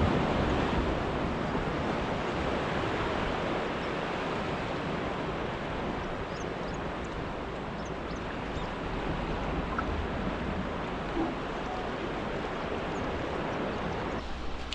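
Steady wash of ocean surf breaking along the shore, a little louder at the start.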